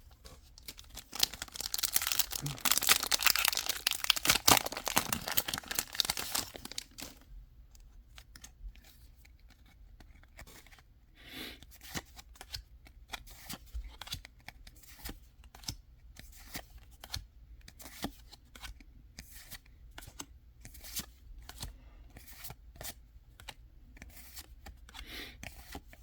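A foil Pokémon booster pack being torn open and crinkled for several seconds, followed by quiet clicks and rustles of the cards being handled and slid one behind another.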